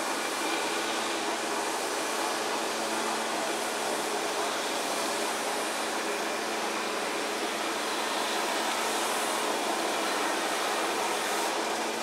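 Steady rushing background noise with no distinct calls, knocks or other events standing out.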